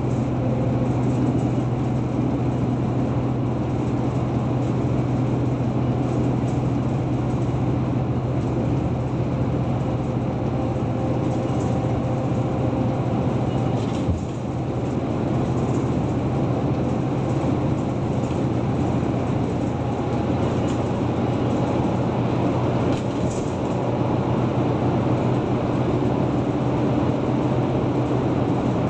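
Steady road and engine noise of a moving car, heard from inside the car: a constant low drone with tyre rumble. A single short knock about halfway through.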